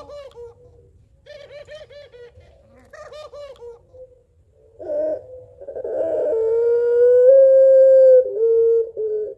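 Puter pelung, a white domestic ringneck dove, giving three short runs of quick rolling 'laughing' notes, then a short coo about five seconds in and one long drawn-out coo that rises slightly and ends on a lower note.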